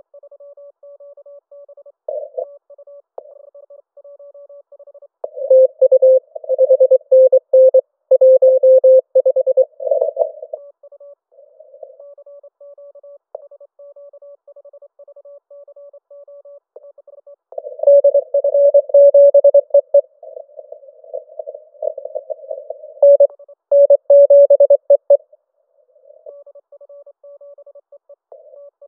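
Morse code (CW) tones from a Yaesu FT-891 HF transceiver during a CW contest. A faint station keys on and off steadily, and two louder, slightly lower-pitched stretches of fast Morse come through for about five seconds each.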